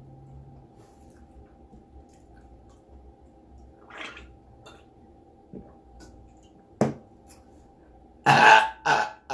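A loud, drawn-out burp about eight seconds in, followed at once by a second, shorter burp, after drinking a sparkling lemonade. A brief sharp sound comes a second and a half before them.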